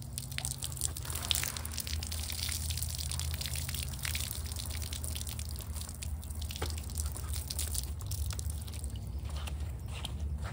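Water draining out of a lifted pool filter cartridge and splattering onto concrete, running as a stream and then dripping, over a steady low hum.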